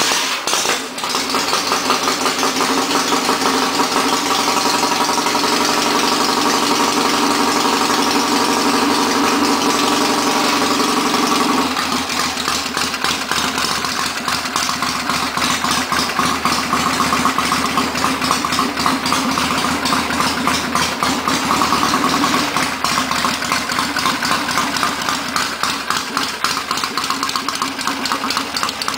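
A 1967 Triumph Bonneville T120R's 650 cc parallel-twin engine, breathing through Amal Monobloc carburettors and open TT pipes, fires up and runs at a steady fast idle. About twelve seconds in the revs drop, and it settles into a lower, lumpier idle.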